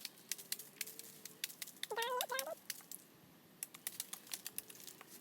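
A chicken gives one short call about two seconds in, over scattered sharp clicks.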